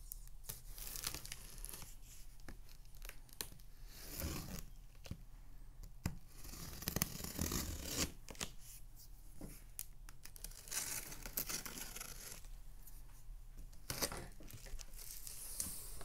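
Packing tape on a cardboard box being slit with a box cutter and torn off in several stretches, with the cardboard flaps scraping as they are pulled open.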